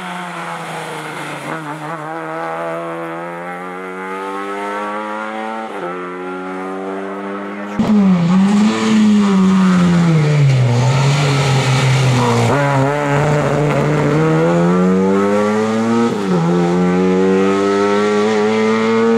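Lada 2105 rally car's four-cylinder engine under hard acceleration, revs climbing and dropping at upshifts about 6 and 16 seconds in. About 8 seconds in the sound turns suddenly louder, and the revs fall away for a few seconds before climbing again.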